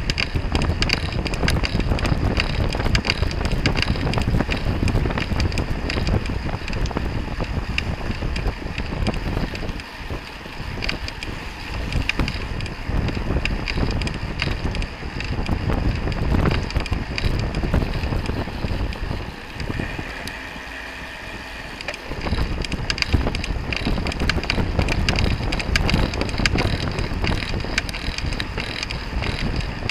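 Wind rushing over the microphone of a camera on a road bike racing at speed in a pack, with a low rumble underneath. The wind eases for about two seconds, roughly two-thirds of the way through.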